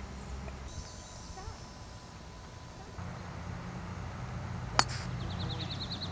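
A single sharp club strike as a golf wood hits the ball off the fairway turf, about three-quarters of the way through, on a quiet outdoor background.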